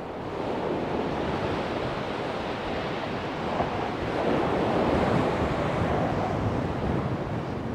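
Rough surf breaking and washing over a shingle beach, with strong wind buffeting the microphone. The noise surges louder about halfway through.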